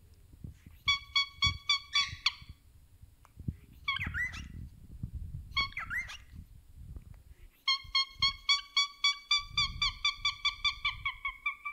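Cockatiel honking in rapid runs of evenly spaced honks, about six a second: a short run of about a second and a half near the start and a longer run of about four seconds at the end, with two short gliding calls between them.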